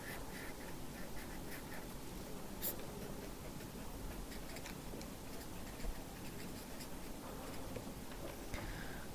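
Soft scratching of a pen on paper as a small shape is drawn and a word is written by hand, in short, faint strokes with a brief click a little under three seconds in.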